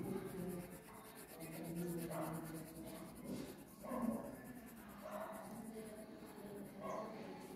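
Coloured pencil scratching on paper in quick back-and-forth shading strokes, over a faint pitched sound in the background.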